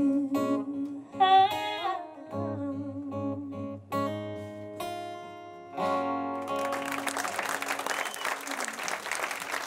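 A small live acoustic set ending: a woman's voice sings a last phrase over acoustic guitar, and the final plucked notes and chord ring out. About two-thirds in, the audience starts applauding.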